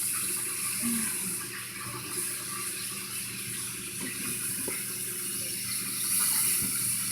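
Kitchen faucet running into a sink while dishes are washed: a steady rush of water that grows louder for a moment near the end, with a few faint knocks.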